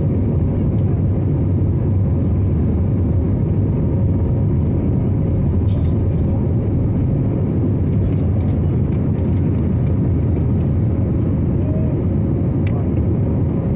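Jet airliner's steady, even low rumble, with faint steady tones above it and no change in level.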